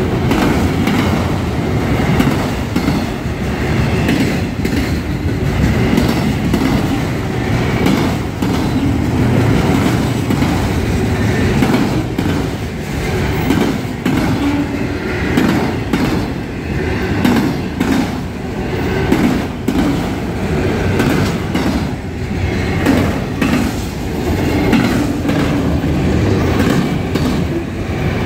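Freight train of enclosed autorack cars rolling past, a steady rumble of steel wheels on rail with repeated clacks as the wheels cross rail joints.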